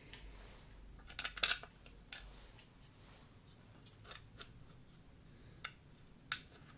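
Scattered light clicks and taps of small parts being handled, a few sharper ones about a second and a half in and near the end, as a plastic part is fitted onto a vacuum cleaner motor being reassembled.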